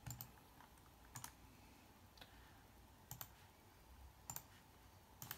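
Faint single computer clicks, about one a second, over near silence as colours are picked in an editing program.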